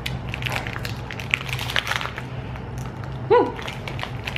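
Plastic soda-cracker wrapper crinkling and crackling as it is torn and pulled open by hand. A short vocal sound that falls in pitch cuts in a little after three seconds and is the loudest moment.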